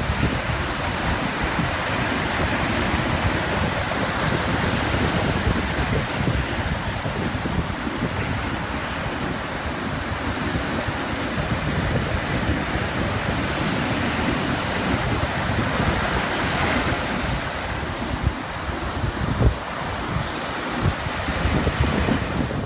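Small ocean waves lapping on a beach in a steady wash of surf, with a brief brighter swell about three-quarters of the way through. Wind buffets the microphone with an uneven low rumble.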